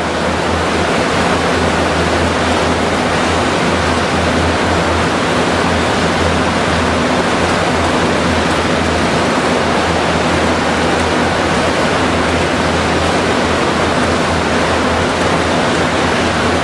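Steady, loud roar of power-station machinery and ventilation, with a constant low hum underneath and no change in level.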